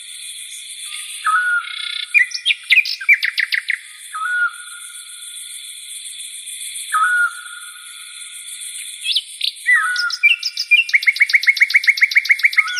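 Birds singing: a short whistled note repeated every two to three seconds, with fast trills of rapid repeated notes about two seconds in and again near the end, over a steady high hiss.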